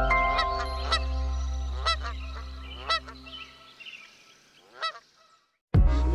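Geese honking in several short calls about a second apart, over a held synth chord that fades out. Near the end, loud music with a rapping voice cuts in suddenly.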